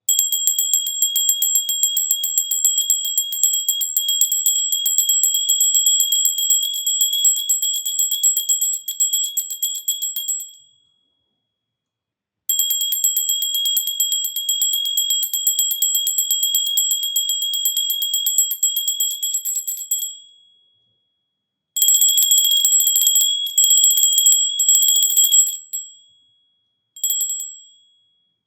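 Small pooja hand bell rung with rapid clapper strikes, a bright high ring. It rings in three long runs, each dying away before a short silence, then a brief shake near the end.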